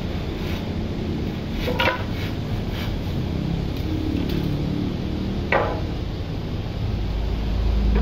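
Steady low rumble with two sharp knocks, each with a brief falling ring, about two seconds and five and a half seconds in; a low hum grows louder near the end.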